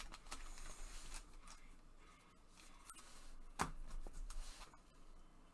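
Faint rustling and light clicks of trading cards and their cardboard box being handled by gloved hands, with one sharper click about three and a half seconds in.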